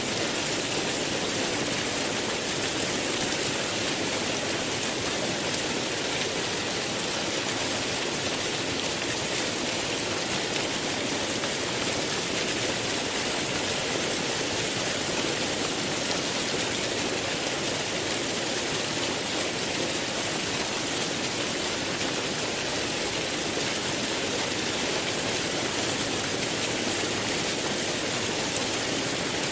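Rushing water running steadily, an even hiss with no letup and no birdsong over it.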